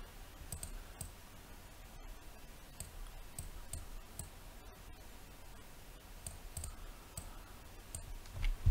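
Faint computer mouse clicks: scattered single clicks, roughly one a second, with short gaps between them.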